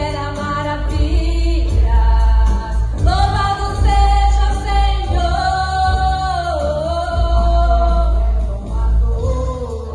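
Christian worship song: voices singing long held notes over steady bass-heavy accompaniment.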